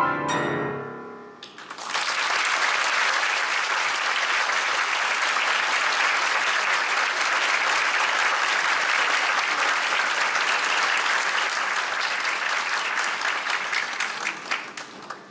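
A piano piece on a Steinway grand piano ends, its last notes ringing out and fading in the first second or so. An audience then applauds steadily for about twelve seconds, thinning to scattered claps near the end.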